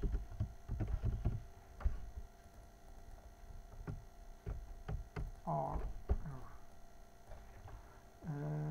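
Irregular clicks and taps of a computer keyboard and mouse over a faint steady mains hum. A short murmur of a voice comes about halfway through, and a steady hummed tone starts near the end.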